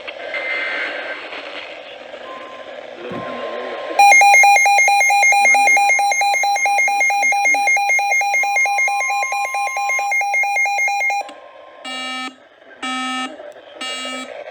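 Hissy, static-laden weather radio reception. About four seconds in, a Midland WR120 weather alert radio's alarm sounds: a loud, rapidly pulsing electronic tone lasting about seven seconds, signalling a received severe thunderstorm warning. It cuts off and gives way to slower, separate beeps about once a second.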